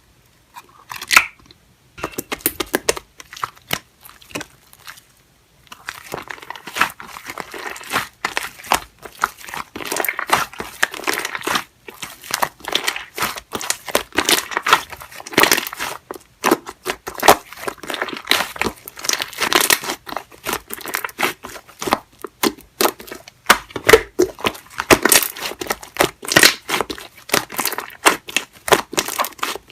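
Soft jelly-textured slime being squeezed and pressed by hand close to the microphone: a dense, irregular run of small crackles and sticky pops, starting with a short burst about a second in and then going on with hardly a pause.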